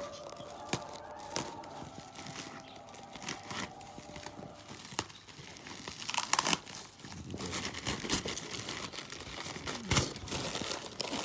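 Parcel packaging being cut and torn open by hand: irregular crinkling, tearing and rustling of wrapping, with a few louder crackles in the second half.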